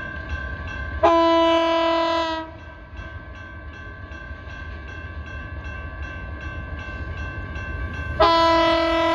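Diesel locomotive horn sounding two long blasts about six seconds apart, one about a second in and one near the end: the train's warning as it nears the grade crossing. Under them the crossing's warning bell rings steadily.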